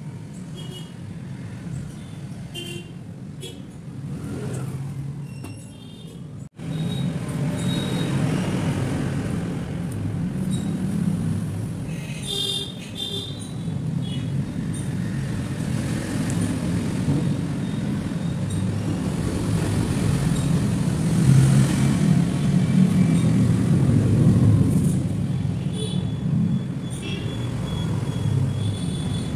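Steady low background rumble, like distant road traffic, that drops out for an instant about six and a half seconds in and is louder after it.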